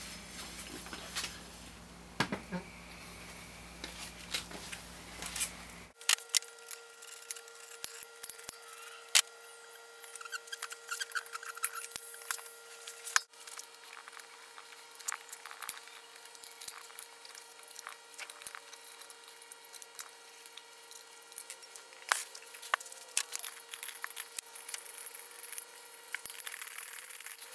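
Scattered small metallic clicks and taps of hand tools on a motorcycle wheel: a hex key working the brake rotor bolts on the hub, with bolts and tools clinking, over a faint steady hum.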